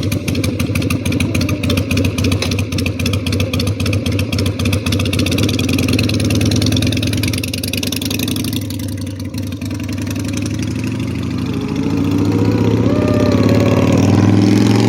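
2003 Harley-Davidson Sportster 883 Custom's air-cooled V-twin, just started and idling with an even pulsing beat. It settles and runs a little louder near the end.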